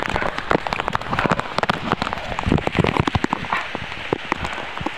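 Heavy rain pouring down, with many sharp, close drop hits over a steady hiss.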